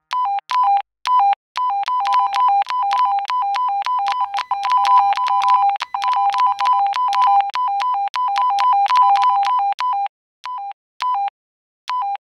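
A rapid run of Baofeng UV-5R roger beeps, the short tone burst a two-way radio sends at the end of a transmission. Each beep is a higher note stepping down to a lower one, and they come thick and fast before thinning to a few scattered beeps near the end.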